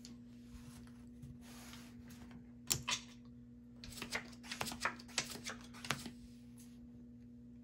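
Playing cards being gathered and slid across a felt blackjack table, then dealt out with a run of quick clicks and snaps from about four to six seconds in; two sharp clacks of cards or casino chips come just before, near three seconds in. A steady low hum sits underneath.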